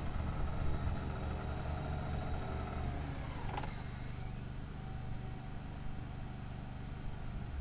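2000 Walker MC GHS riding mower's 16 HP gas engine running steadily as the mower drives across grass. A little after three seconds in, the engine note shifts, with a brief falling whine.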